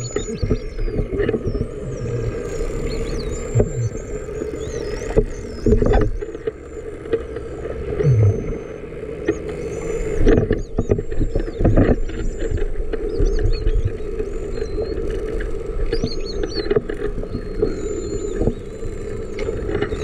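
False killer whales whistling underwater: many high, looping whistles that rise and fall, one after another, over a steady low hum.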